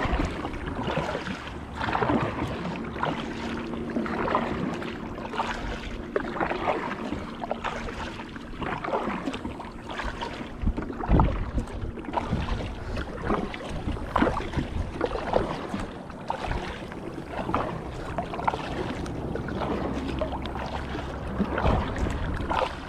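Kayak paddle blades dipping and splashing in the water, stroke after stroke, swelling every second or two.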